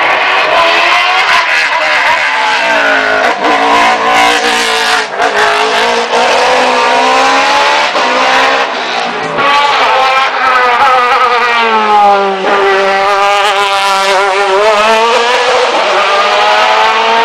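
Race car engines at racing revs on a hill-climb course, the engine note rising and falling again and again as the cars slow for a hairpin and accelerate away.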